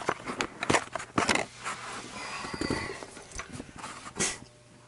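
Hands working on an air conditioner's blower and run capacitor: a quick run of sharp clicks and knocks with scraping and rustling, stopping near the end, over a faint steady low hum.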